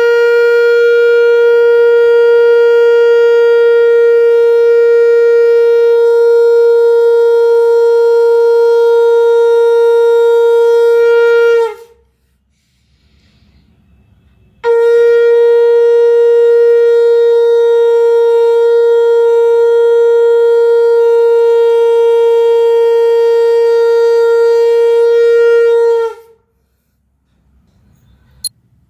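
Conch shell (shankh) blown in two long, steady blasts of about eleven or twelve seconds each, with a short pause between them. Each blast holds one pitch and dips slightly at its end.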